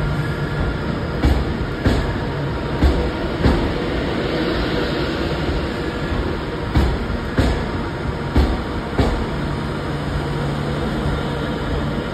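Class 390 Pendolino electric train pulling slowly out past the platform: a steady running rumble and hum, with sharp knocks that mostly come in pairs as its wheels pass over rail joints.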